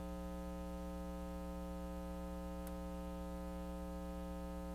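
Steady electrical mains hum with a stack of even overtones, unchanging throughout, and a faint tick about two and a half seconds in.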